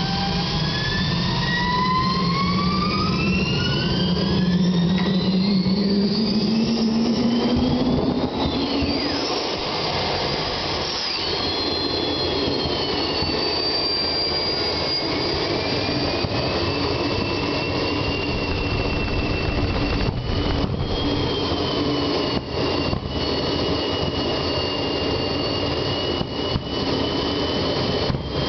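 Homemade gas-turbine jet engine running. Its whine rises in pitch over the first several seconds as it spools up, then holds steady at a high pitch over a constant rush of combustion and exhaust noise.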